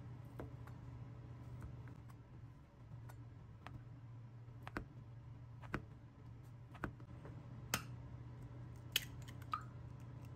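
Chef's knife cutting fish cake into thin strips on a plastic cutting board: separate sharp chops about a second apart over a steady low hum. Near the end, two sharper knocks, one with a short ring, as an egg is cracked against a ceramic bowl.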